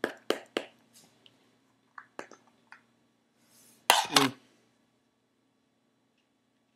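A can of Skoal Straight dip being packed: about four quick taps in the first second as the can is flicked. Then a few small clicks, and a brief louder knock-and-rustle about four seconds in.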